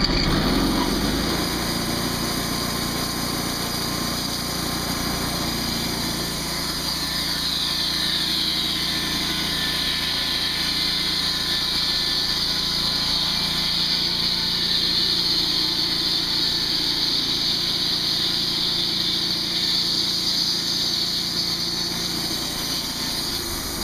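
TimberGriz portable band saw mill running steadily as its band blade cuts through a red cedar cant. A high hiss from the cut grows stronger about a third of the way in and holds, easing slightly near the end.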